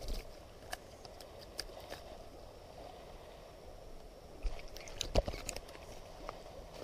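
A hooked fish splashes as it is swung out of the river, followed by faint handling clicks and a cluster of knocks and thumps about five seconds in as it is dropped onto the rocky bank. A steady low rush of flowing water runs underneath.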